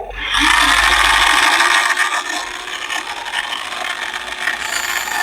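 Loose sand scraping and sliding as the Huina 1580 RC excavator digs through the pile, a loud rasping for about the first two seconds that then goes on softer.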